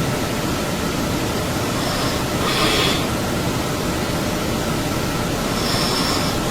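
A person snoring loudly: a steady, low, rough rumble, with a breathy hiss about every three seconds.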